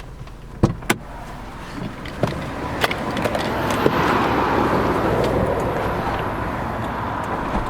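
Electric glass sunroof of a 2004 Honda CR-V moving on its motor: two sharp clicks, then a steady whirring hum with a faint whine that swells and runs on.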